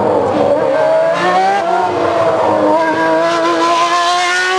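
Race car engine revving: its pitch dips, then climbs slowly and steadily.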